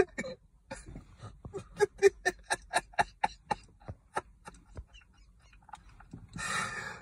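A person laughing in a run of short, evenly spaced, pitched bursts, about four a second, starting a second or so in. A long breathy rush near the end.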